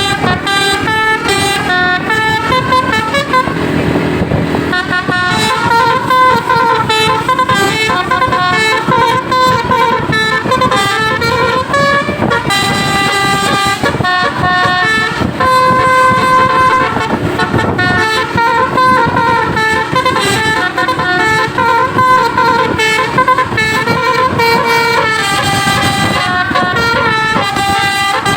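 Indonesian bus basuri telolet musical horns playing melodies, one tune running into the next without a break, over the rumble of bus engines.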